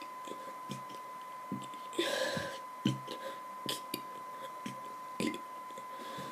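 A boy gulping air to work up a burp for the letter Q, which he finds hard: small throat and mouth clicks and gulps, with a breathy exhale about two seconds in. A faint steady high tone sits underneath.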